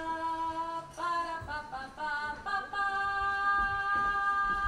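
A child singing a slow melody alone, in long steady held notes; near the end she holds one note for about two seconds.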